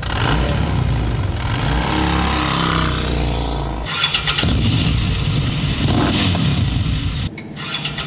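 Harley-Davidson motorcycle engine running and revving, the pitch rising and falling, with abrupt cuts about four seconds in and again near the end.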